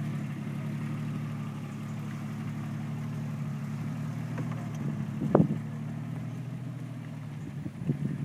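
Jeep Cherokee engine running at low, steady revs as the off-roader crawls slowly over rough dirt, with a sharp thump about five seconds in and a few smaller knocks near the end.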